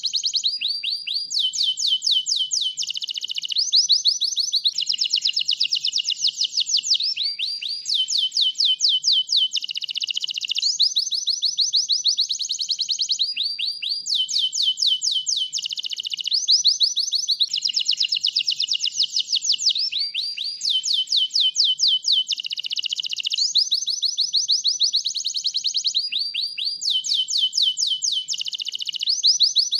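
White canary singing without a break: rapid trills of quickly repeated notes, switching to a new trill every second or two.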